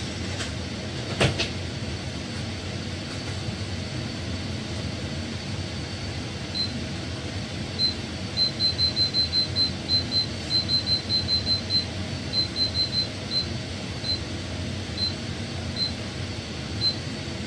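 Built-in steam oven's control panel beeping as its cooking settings are dialled in. The short, high beeps come in quick runs of about five a second, then singly, further apart. A single knock about a second in, as the oven door is shut, over a steady hum.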